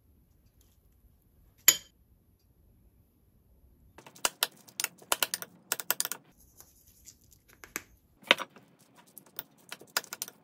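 A metal spoon clinks and scrapes against a ceramic bowl in quick runs of sharp clicks while rice and fried eggs are mixed. There is one sharp click just under two seconds in, and another loud one a little after eight seconds.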